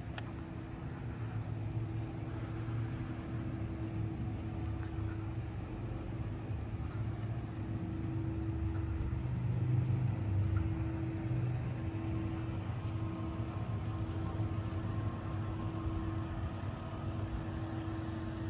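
Steady engine drone with a constant hum, unbroken throughout.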